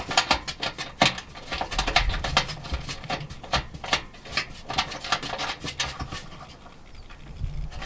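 Metal lockbox and its mounting brackets being shifted and adjusted under the truck's rear seat: irregular clicking, rattling and light knocks of metal against metal, with a few dull thumps.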